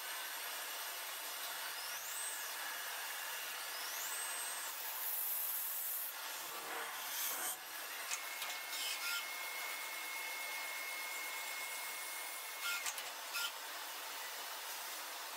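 Metalworking machinery running with a steady high, hissing rub of tool on metal. Two short rising whines come in the first few seconds, and a steady high tone holds for several seconds past the middle, with a few sharp ticks.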